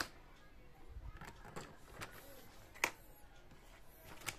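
A few scattered light clicks and taps of small rotary-tool accessories and the plastic kit case being handled, the sharpest click about two-thirds of the way through.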